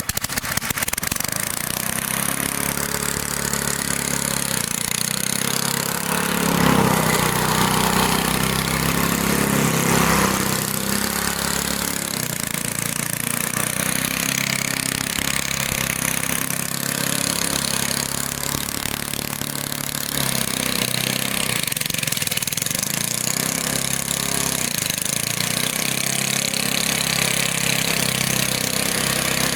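Briggs and Stratton lawn mower engine running hard and unregulated, swelling louder twice in the first third. Its governor is broken, so nothing holds its speed down, which the owner expects to end in a broken connecting rod.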